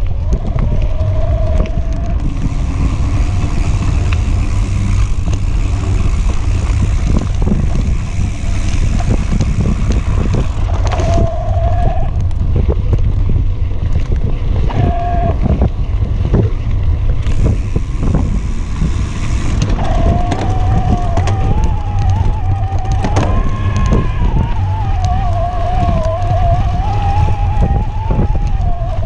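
Electric mountain bike ridden over a dirt singletrack: heavy wind buffeting the microphone, with tyre and frame rattles over the bumps. A whine from the e-bike's motor rises and falls with the pedalling, coming in briefly a few times and then running almost without a break through the last third.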